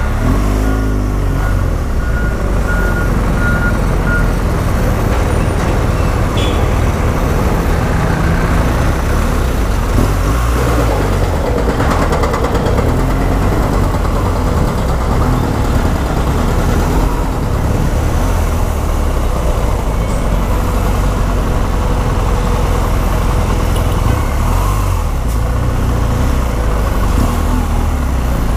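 BMW R1200GS Adventure boxer-twin engine running at low speed among town traffic, a steady low rumble as heard from the rider's helmet camera.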